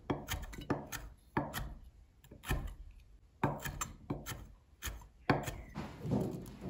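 Chef's knife chopping soft pickled jalapeño slices on a wooden cutting board: irregular knocks of the blade on the wood, roughly two a second.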